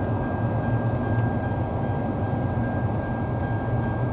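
Steady car cabin drone of a running car, a low even rumble with a faint steady high-pitched tone above it and no chime sounding.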